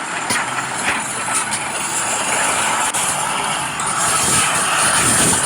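Radio-controlled model construction machines running: a steady mechanical whirring hiss, louder in the upper range, with a few faint knocks.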